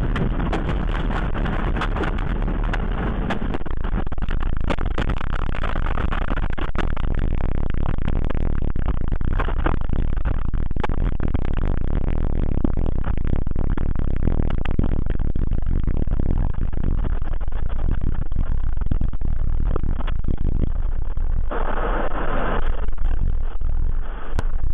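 Strong tornado wind roaring and buffeting the microphone, steady and loud, with a brief louder gust near the end.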